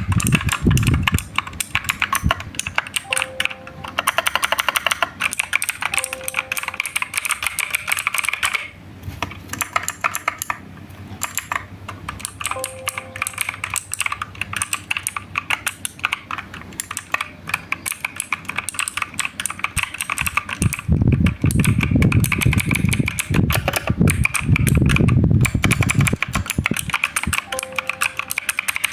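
Clicky blue switches of a Unitech Astrion 60% mechanical keyboard being typed on fast: a dense run of sharp key clicks with a few brief pauses. Deeper thuds join the clicks for several seconds in the last third.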